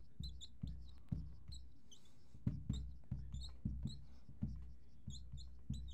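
Whiteboard marker squeaking and tapping on a whiteboard as a word is written by hand, in many short irregular strokes with brief high squeaks.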